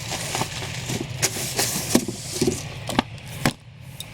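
Comic books being handled and sorted: paper and bag rustling with several sharp taps as issues are set down, over a steady low hum.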